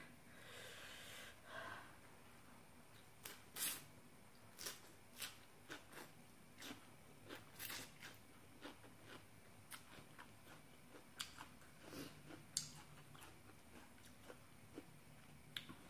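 Close-up mouth sounds of a person eating green papaya salad with rice noodles by hand: chewing with wet lip smacks and sharp clicks about every half second. A short breathy intake of air comes at the start.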